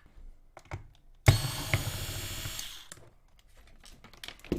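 Electric screwdriver motor starting suddenly and running fast for about a second and a half while unscrewing a screw from a battery charger's casing, with a few small clicks of handling before and after.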